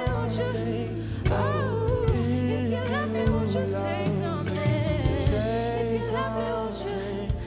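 Background music: a slow song with a sung vocal line over sustained bass notes.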